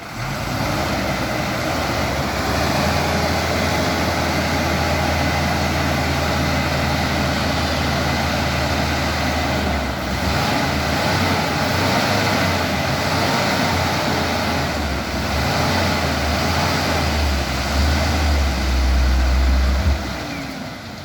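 Heavy diesel vehicle engine running with a steady low drone. It swells to a deeper, louder rumble near the end, then cuts off abruptly.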